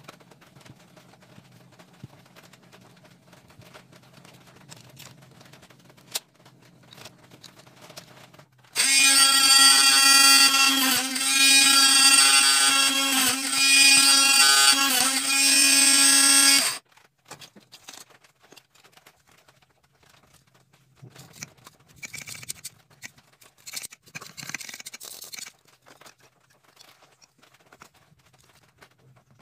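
Small bench drill running for about eight seconds while drilling a PVC pipe fitting, a steady motor whine whose pitch dips briefly a few times. Light clicks and rustles of handling before and after.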